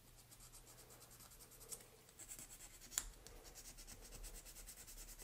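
Faint, rapid back-and-forth scratching of a small abrasive pad rubbed over the edge of a clear plastic toy-car windshield to smooth its rough surface, with one sharp click about three seconds in.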